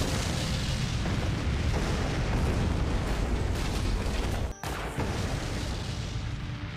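Dramatised explosion sound effects as a group of Cybermen is blown apart, a continuous rumbling blast with burning. The sound cuts out for a moment about four and a half seconds in, then the blast resumes.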